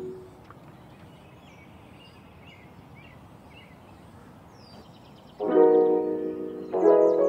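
Background piano music: a chord dies away at the start, then a quieter stretch of a few seconds with faint high chirps, and piano chords come back in about five and a half seconds in, with another just before the end.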